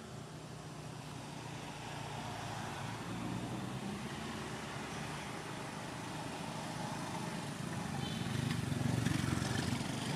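A motor vehicle's engine running with a steady low hum, growing louder toward the end.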